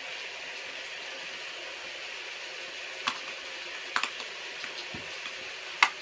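Steady hiss of rain falling outside. A few sharp clicks, the loudest just before the end, as something is handled.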